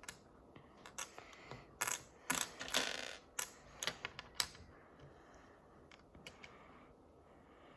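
Small plastic toy building pieces clicking and clattering as they are handled and pressed together: a quick run of sharp clicks over the first few seconds, then only a few faint ticks.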